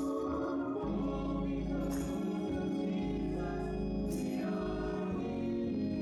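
Gospel choir singing with instrumental backing: held chords over a steady bass line, with a cymbal-like accent about every two seconds.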